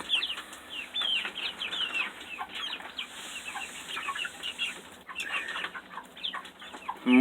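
A flock of young chickens clucking and peeping, many short calls overlapping.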